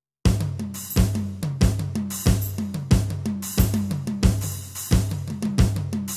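A drum kit playing a short repeating groove of bass drum, snare and cymbals, with a strong hit about every two-thirds of a second. It starts suddenly about a quarter second in.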